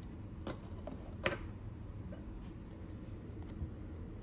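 Two light clicks, about a second apart, as a trading card is handled and set into a small plastic display stand, over faint steady room tone.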